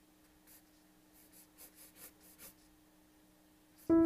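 Pencil sketching on paper: a few short, faint scratchy strokes. Piano music starts abruptly near the end.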